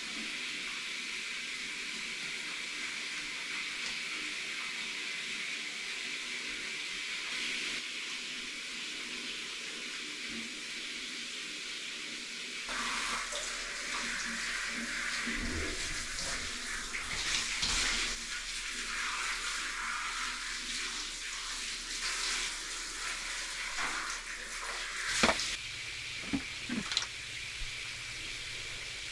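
Running water during a dog's bath, a steady hiss at first, then uneven splashing from about 13 seconds in. A sharp knock comes near 25 seconds, followed by a couple of smaller knocks.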